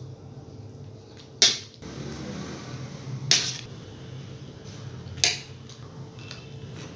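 A spoon clatters against a plate three times, about two seconds apart, over a steady low hum.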